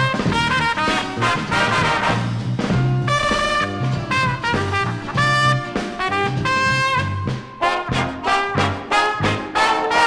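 Big band music from a 1960s LP: the brass section of trumpets and trombones plays held chords over a walking low end, then breaks into short stabbed chords near the end.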